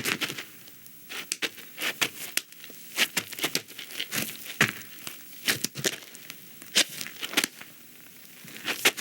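Irregular crackling and crinkling, with sharp clicks scattered at a few per second over a faint hiss.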